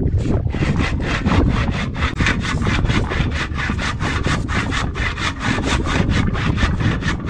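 Handsaw cutting through a mangrove log in quick, even back-and-forth strokes, each stroke a rasping scrape. The old saw's teeth have been bent outward with pliers to widen the cut so the blade won't bind.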